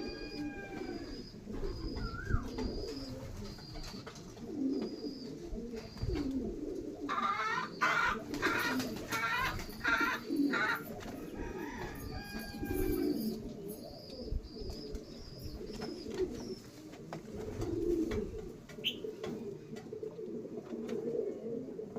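Pigeons cooing in low repeated phrases, with high thin peeps over them. About seven seconds in, a louder, harsher bird call runs for about four seconds.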